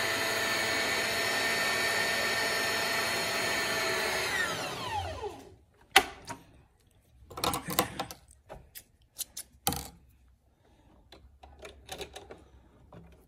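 Sewing machine motor running at high speed while winding a bobbin, with a steady whine; a little over four seconds in it slows, its pitch falling, and stops. Then come several sharp clicks and knocks as the bobbin and machine are handled.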